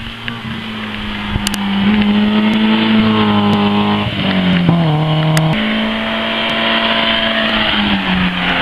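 Rally car engine, a BMW E30 saloon, pulling hard as it drives past. Its engine note climbs, then falls sharply twice, about four and five and a half seconds in, and runs on at a steadier pitch.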